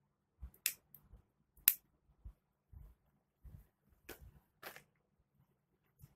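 Scissors snipping through macrame cord: four sharp snips, the second the loudest, with soft low handling bumps between them.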